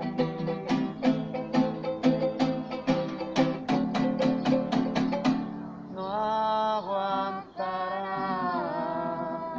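Jaranas jarochas strummed in a quick, even son jarocho rhythm. About six seconds in, a voice begins singing long held notes that bend in pitch, over lighter strumming.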